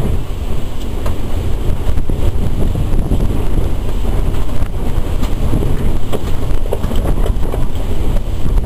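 Strong wind buffeting the microphone, a loud uneven rumble, with a few light knocks about six to seven seconds in.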